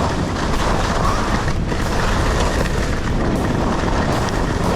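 Wind rushing and buffeting over the microphone of a skier going fast downhill, a steady loud rumble, with skis hissing and scraping over the snow.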